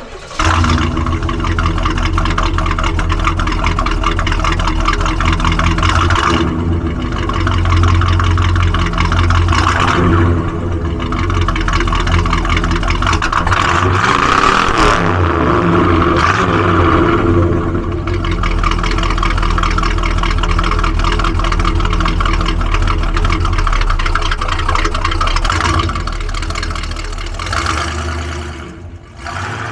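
1968 Oldsmobile 442's 400 cubic-inch V8 running through its dual exhaust: idling with several short blips of the throttle, one longer rev rising and falling about halfway through. Near the end the car drives off.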